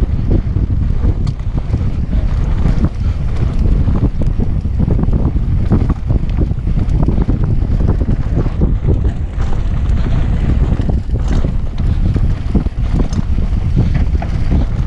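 Heavy wind buffeting on an action camera's microphone during a fast mountain-bike descent, with the tyres running over a rough dirt trail and many small rattles and knocks from the bike.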